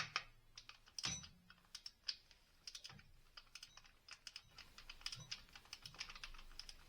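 Faint, irregular light clicks from the ratchet of a small 1/4-inch drive torque wrench as it tightens intake manifold bolts on a first low-torque pass, some in quick runs.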